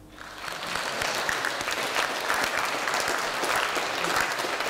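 A roomful of people applauding, the clapping starting just after the opening and building to full strength within about a second, then holding steady.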